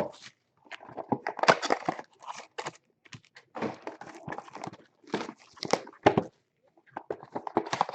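Trading card pack wrappers crinkling and tearing as packs are opened by hand, in irregular bursts of crackling with short pauses between.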